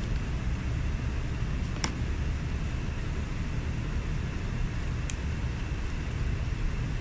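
Steady low background rumble, with two brief faint clicks about two and five seconds in.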